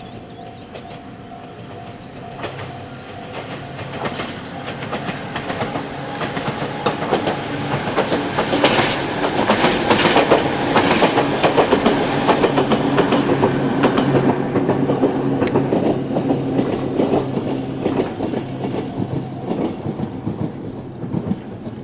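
Ohmi Railway 800-series electric train passing: it grows louder as it approaches, wheels clicking rhythmically over rail joints with a steady low motor hum, loudest about halfway through, then fading as it moves away.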